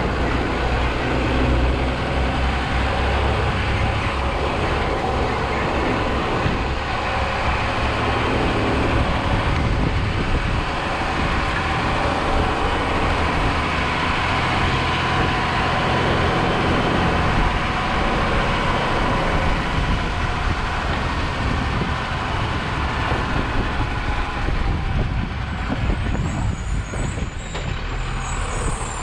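Automated side-loader garbage truck driving along a street, its engine running steadily with road noise.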